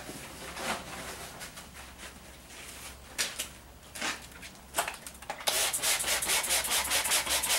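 A thin plastic fodder tray of sprouted barley being handled, with scattered rustles and then, about five and a half seconds in, a fast run of rubbing, scraping strokes that is the loudest part.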